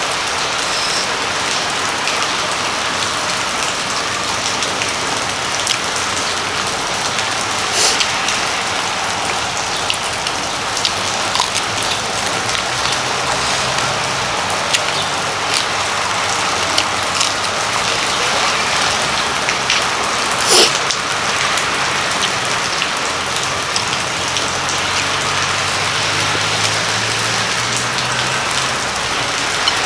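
Steady rain falling, an even hiss of rain on surfaces, with a few sharp taps through it, the loudest about twenty seconds in.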